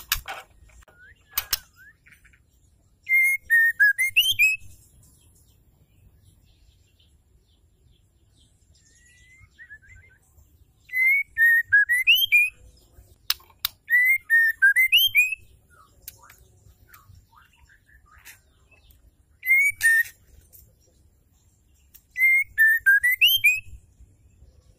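White-rumped shama singing in about five short phrases, each a second or two of rising and falling whistles with a high twittering above them, with pauses of several seconds between. A few sharp clicks fall between the phrases.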